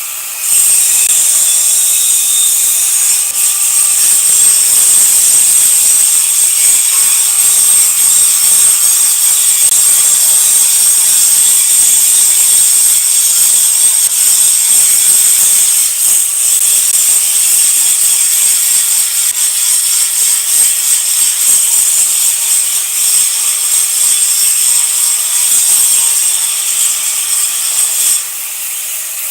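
Electric arc welding: the arc crackles and hisses without a break as a bead is laid, with a steady high-pitched tone running under the crackle. It starts about half a second in and cuts off shortly before the end, as the arc is broken.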